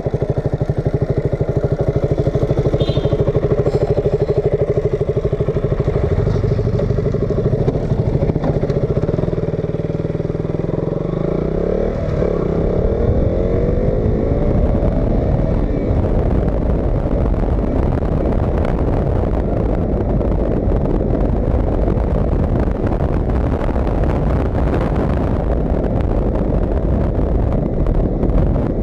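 KTM RC 200's single-cylinder engine idling steadily, then rising in pitch as the motorcycle accelerates away about eleven seconds in. After that the engine runs at riding speed under a steady rush of wind noise.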